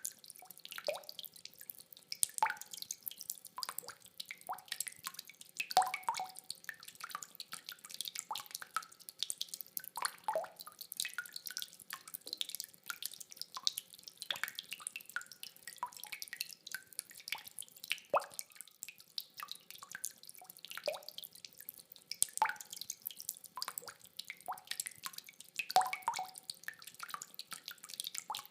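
Rainwater dripping in irregular drops, a few every second, each a short plink.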